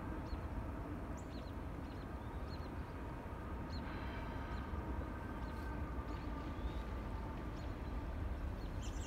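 Small birds chirping, many short high chirps scattered throughout, over a steady low rumble from a distant freight train approaching on the line.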